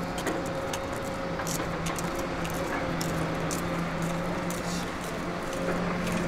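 Diesel engine of a Liebherr R 924 crawler excavator running with a steady hum, with scattered light clinks and scrapes.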